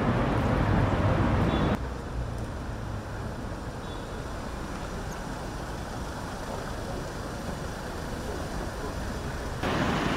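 Street traffic noise with car engines running as cars pull up at the kerb. It is louder for the first couple of seconds, drops suddenly to a steady, quieter rumble, and rises suddenly again near the end.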